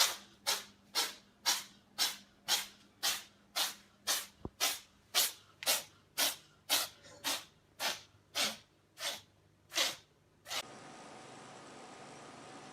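Cat sneezing over and over in a long fit, about two sharp sneezes a second, some twenty in a row. It then gives way to a steady faint hiss.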